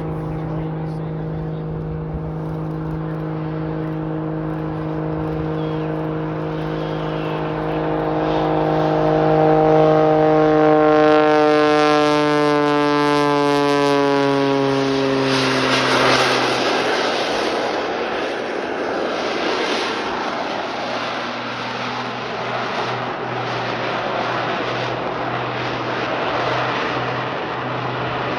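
Pitts Special aerobatic biplane's engine and propeller running at high power as it flies a display; the tone grows louder, then slides steadily down in pitch about halfway through as the aircraft passes close by and away, leaving a rougher rushing engine noise.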